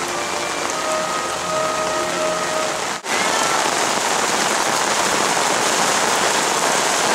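Steady hiss of rain falling, with a brief dropout about three seconds in.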